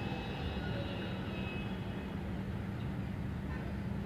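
A vehicle engine running at a steady, low drone, holding level without revving up or down.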